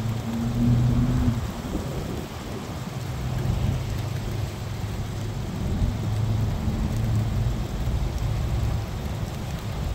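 Steady rain falling during a thunderstorm, with a low rumble underneath.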